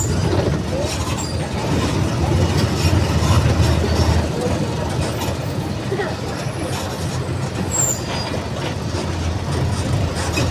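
Mercedes-Benz OF 1722M bus diesel engine running with a low, steady drone. It swells about two seconds in, eases after about four seconds and swells again near the end, with scattered rattling clicks.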